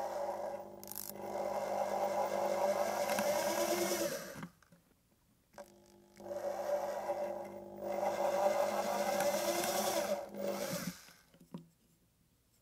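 Small electric drill with a twist bit boring into a small piece of softwood, run twice for about four seconds each with a short pause between. The motor's pitch sags as each run stops.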